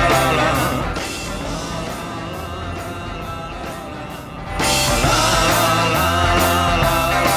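Rock song with a sung vocal line. It drops to a quieter passage about a second in and comes back at full level just past the middle.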